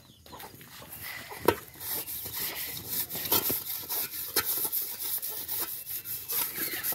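Metal cooking pot (sufuria) being scrubbed by hand with soil, a quick, irregular gritty rasping against the metal. A single knock about a second and a half in, before the scrubbing gets going.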